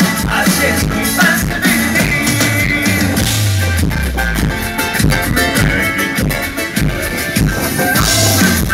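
A band playing amplified music during a soundcheck, with a steady drum beat and a bass line.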